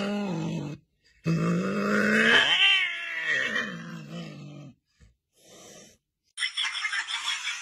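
An animal's long, drawn-out pitched call that breaks off just under a second in, then a second long call that rises in pitch and falls away over about three seconds. Near the end, music with a quick beat starts.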